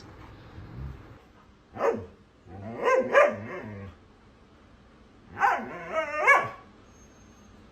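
A dog barking and vocalizing in three short bursts whose pitch bends up and down. The longest burst comes midway.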